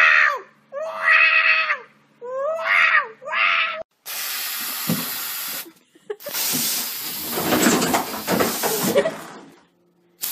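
A black cat yowling four times in quick succession, drawn-out calls that sound like "wow". From about four seconds in, a rushing hiss of water follows, like a toilet flushing, and dies away near the end.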